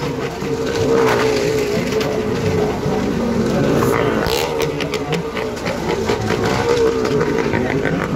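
Car and motorcycle engines running steadily inside a wooden well-of-death drum.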